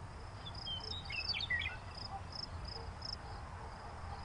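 Meadow ambience of crickets chirping in a steady repeating pattern, about two chirps a second, with a brief twitter of bird chirps about a second in, over a low steady hum.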